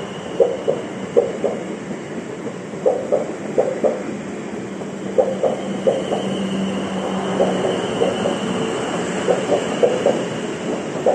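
Electric multiple-unit passenger train rolling slowly past, its wheels clicking over rail joints in groups of beats as each bogie crosses, every second or so, over a steady rolling rumble. A low hum fades about three-quarters of the way through, and a faint high whine runs underneath.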